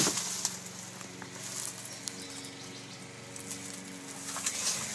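Rustling and scattered small clicks from a handheld camera being moved around, loudest right at the start, over a steady low hum.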